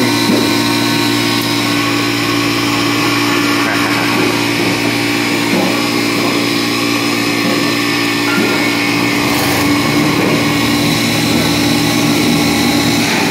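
Self-contained ice machine's refrigeration system running: a steady mechanical hum with a loud whirring hiss, and a deeper rumble joining about nine seconds in.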